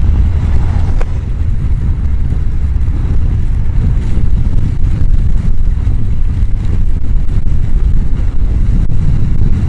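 Heavy wind rumble and buffeting on a helmet-mounted microphone while riding a Honda CBR1000F motorcycle at speed, with the bike's running noise underneath. The microphone sits right behind the chin-bar air vent, so the airflow hits it directly.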